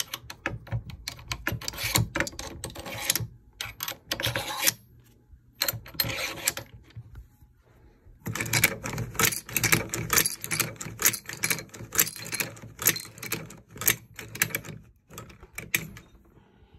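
Hand-cranked 1918 machine-gun belt loader being cranked, its mechanism clattering in rapid clicks as .30-06 cartridges are pushed into a fabric ammunition belt. The clatter stops for a few seconds midway, then starts again and runs on until near the end.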